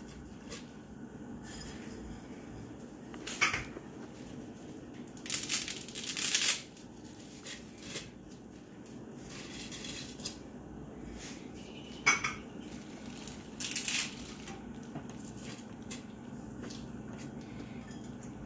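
A utensil clinking and scraping against a metal stockpot as spaghetti is pushed down and stirred into boiling water: a few separate clinks and one longer scrape over a steady low background.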